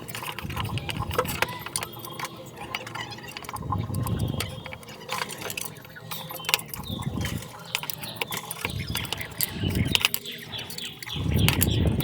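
Small metal parts and tools being handled, with irregular sharp clicks and light metallic clinks and a few dull low thumps, as sockets are fitted to a metal cabinet.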